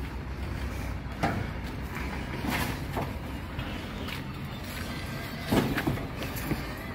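MAN TGM 18.290 recycling truck's diesel engine idling steadily, under a series of knocks and clatters as recyclables and cardboard are tossed into its rear hopper; the loudest clatter comes about five and a half seconds in.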